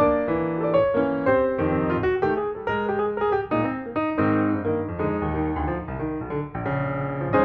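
Instrumental piano music, a continuous run of notes.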